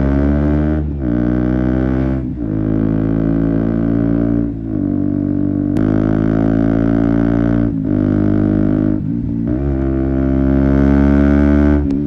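KTM Duke 125's single-cylinder four-stroke engine through an Akrapovic exhaust, running at steady revs on the move, with several brief dips in the note and a single sharp click about six seconds in.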